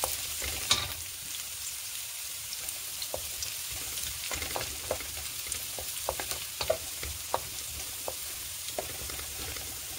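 Minced garlic sizzling in hot oil in a wok, being sautéed toward golden brown. A wooden spatula stirs it, with light clicks and scrapes against the pan every second or so.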